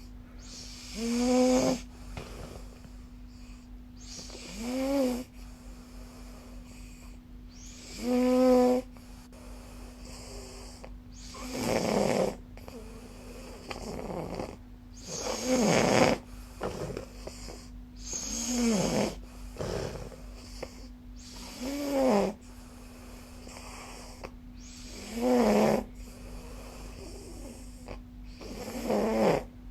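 A sleeper snoring with a Nastent nasal stent in: about nine snores roughly every three and a half seconds, each a pitched snore of about a second that rises and falls. A steady low hum runs underneath.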